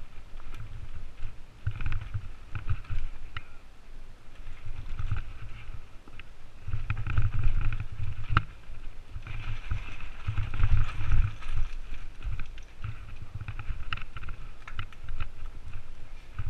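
Mountain bike descending dirt singletrack at speed, heard from a helmet camera: a continuous, uneven rumble of wind and tyres on the trail, with frequent knocks and rattles as the bike hits roots and bumps.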